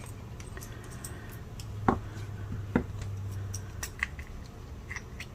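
Small plastic clicks and taps as a nail-charm case is pushed open and handled. Two sharper clicks come about two and three seconds in.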